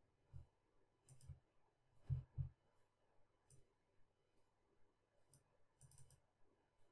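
Faint computer mouse clicks, scattered and uneven: single clicks and quick pairs, the loudest pair a little after two seconds in and a small cluster near the end.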